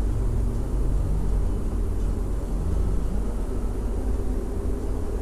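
Peugeot 308 driving along, heard from inside the cabin: a steady low rumble of engine and road noise.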